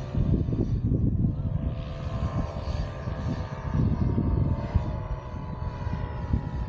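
Engine of a paramotor (powered paraglider) flying overhead, running at a steady pitch, under gusty wind buffeting the microphone.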